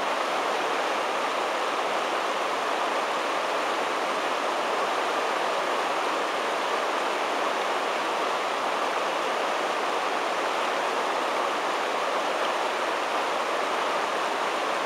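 Whitewater of a standing river wave rushing steadily: an even, unbroken noise of churning water with no distinct splashes standing out.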